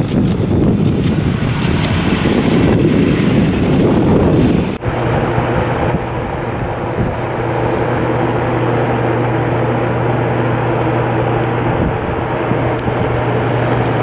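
Wind buffeting the microphone over an ambulance driving past on a snowy street, with no siren. After an abrupt cut, a steadier wind hiss carries a constant low hum.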